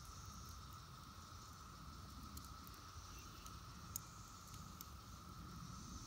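A faint, steady drone from a distant chorus of Brood X periodical (17-year) cicadas. A few faint crackles come from the smoldering campfire embers, one of them about four seconds in.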